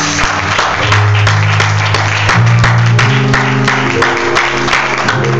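Church band music with held keyboard and bass notes that change every second or so, over a congregation clapping and applauding.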